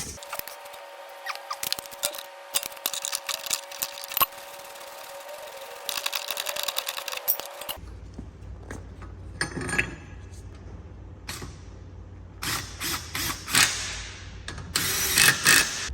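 Workshop tool sounds during a suspension ride-height adjustment: irregular metal clicks and clinks. A steady machine whine runs for roughly the first half and then stops.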